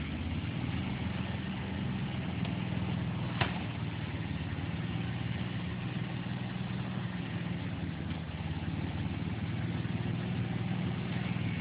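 Off-road vehicle's engine idling steadily, with a single sharp click about three and a half seconds in.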